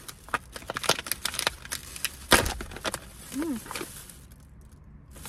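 Plastic snack bag of fried taro chips crinkling and crackling as it is handled and opened, with one louder crack about two seconds in, then quieter near the end.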